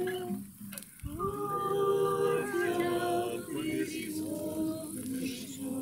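Several voices singing a slow song in long held notes, with a short break about half a second in.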